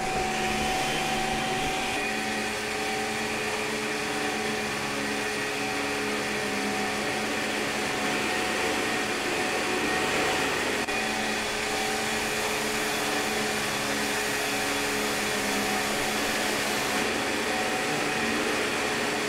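Upright vacuum cleaner running steadily, joined right at the start by a countertop blender switched on, the two motors running on together in a steady hum.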